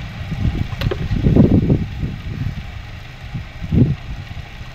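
Steady low hum of a motorized potter's wheel spinning while wet clay is shaped on it. Louder low rumbling bursts come and go about a second in and again near the end, with one brief click.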